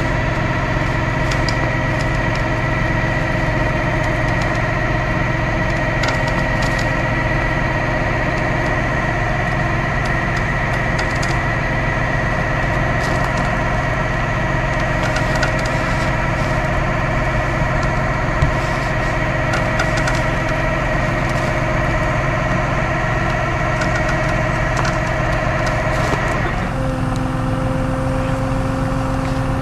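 Tow truck engine running steadily while its winch pulls a car in, with a steady whine over the engine's low drone and scattered faint clicks and snaps. The whine shifts to a lower pitch near the end.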